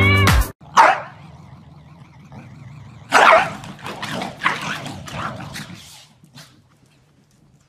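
Corgis barking while they play: one short bark just under a second in, then a run of barks from about three to six seconds in.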